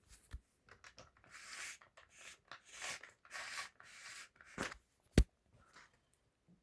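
Remington Portable typewriter's platen being turned by hand with its free-rotation lever engaged: a run of soft rubbing sounds, then two sharp mechanical clicks about five seconds in, the second the louder.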